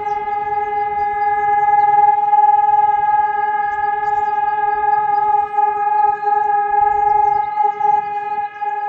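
Helin electronic civil-defence sirens (HES 1200 and HES 600) sounding the one-minute steady all-clear tone (Entwarnung). It is a loud, unwavering horn-like note with no rise and fall, dipping briefly in level a few times in the second half.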